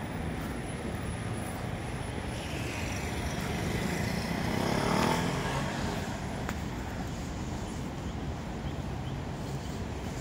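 City street traffic: cars, taxis and buses running and moving in a steady hum, with one vehicle passing close and loudest about five seconds in.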